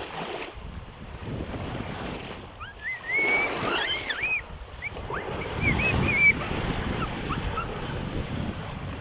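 Sea waves washing on the beach with wind buffeting the microphone. High, gliding calls or shouts rise over it twice, from about three to four and a half seconds in and again around six seconds.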